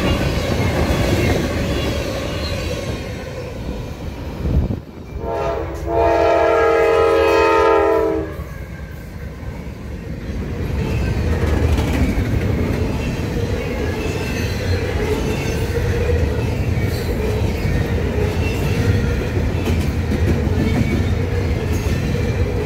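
Freight train rolling past close by, its steel wheels rumbling and clacking over the rails. About five seconds in, a train horn sounds one steady chord of several tones for about three seconds.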